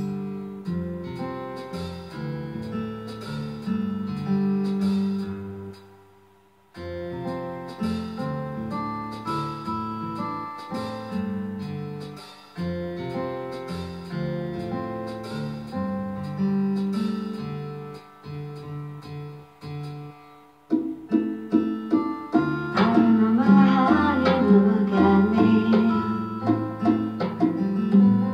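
Instrumental song intro led by picked acoustic guitar notes, with a few short pauses, growing louder and fuller about three-quarters of the way through.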